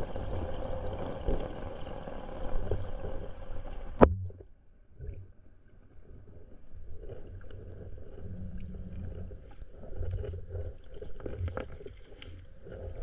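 Water noise heard through an underwater camera in a rocky stream: a dense, muffled rushing for about four seconds, cut by one sharp knock, then quieter low rumbling with faint scattered clicks.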